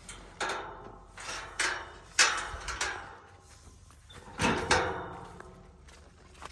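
A series of sharp knocks and bangs, each fading quickly. The loudest comes about two seconds in and a close pair follows about four and a half seconds in.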